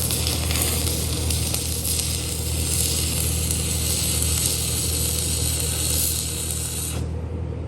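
DC stick-welding arc from a Miller Syncrowave 350 at about 62 amps, sizzling and crackling steadily, then stopping sharply about seven seconds in. A low steady hum runs underneath.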